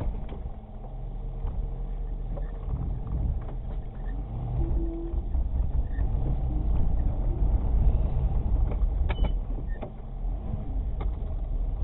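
Engine of a small homemade snowplow rig running, a steady low rumble that grows louder over the first couple of seconds, with a few light clicks near the end.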